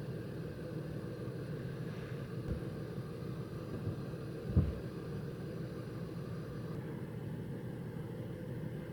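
Steady low rumble of a vehicle on the move, with a single thump about halfway through.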